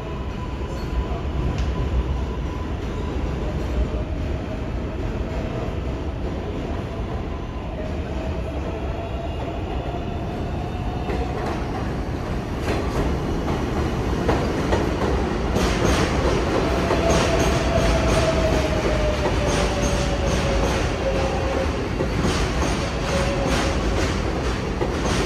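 R188 subway train on the 7 line running through the station, a steady rumble with a whining tone that glides up and then down. About halfway in, the wheels start clacking over the rail joints, and the train grows louder toward the end.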